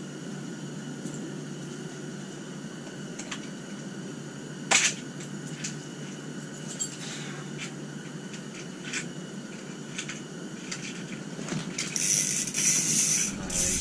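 Light clicks and rattles of an ice-fishing rod and spinning reel being handled over a steady low hum, with one sharper click about five seconds in. Near the end, about a second and a half of loud rasping as the reel is worked.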